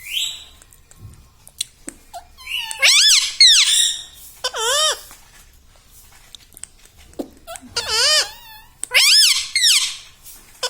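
Indian ringneck parrot calling in several loud, high, wavering squawks, the longest near the middle and another near the end.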